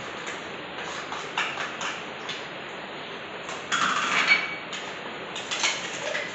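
Kitchen clatter: clicks and knocks of a steel mixer-grinder jar and its lid being handled, with knife taps on a wooden chopping board, louder about four seconds in and again near the end.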